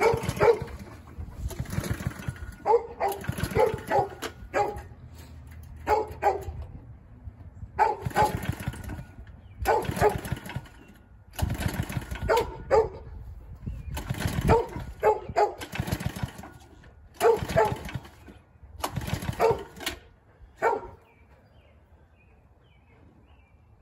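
The go-kart's small gasoline engine is pull-started again and again. The recoil starter is yanked about ten times, each pull a short cranking whirr, and the engine does not catch and run.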